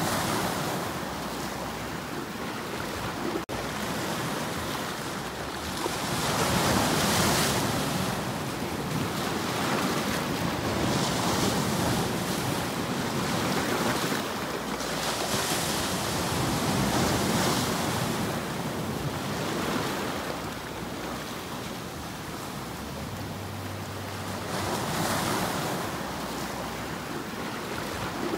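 Sea surf breaking and washing over shoreline rocks, the rush of water swelling and falling back every few seconds.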